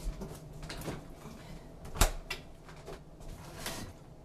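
A kitchen door or cupboard being opened and shut while someone fetches an item. There are scattered light clicks and rustling, and one sharp knock about two seconds in.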